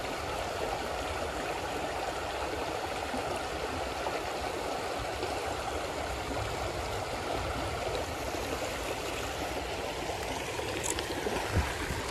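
Shallow creek water running over rocks in a steady, even rush. A single short thump comes near the end.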